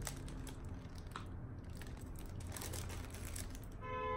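Plastic packaging and a cardboard box being handled during unpacking: light crinkling, rustling and small clicks. Near the end, a steady pitched tone is held for about a second.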